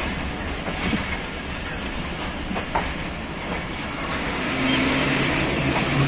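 Passenger train rolling slowly along a station platform, heard from an open coach window, with a few clicks of the wheels over rail joints. About four and a half seconds in, a steady low hum joins the rumble.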